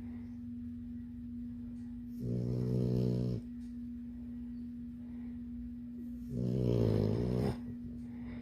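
Labrador puppy snoring in her sleep: two drawn-out, pitched snores about four seconds apart, each lasting about a second, over a steady low hum.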